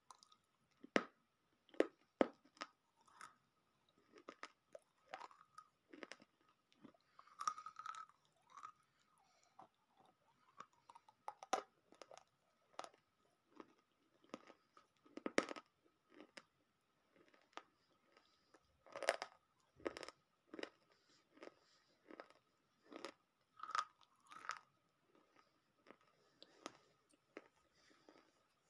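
Close-up mouth sounds of a person biting and chewing brittle, chalky earth pieces. The crunches come irregularly, about one or two a second, each short and crisp.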